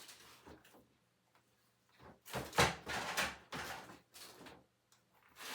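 A cluster of knocks and clattering thuds, as of household objects being moved and set down, loudest about two and a half seconds in.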